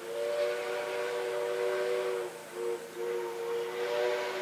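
Steam locomotive whistle sounding a chord: a long blast of about two seconds, a short toot, then another long blast, from NSWGR 59 class 5917 approaching with the train.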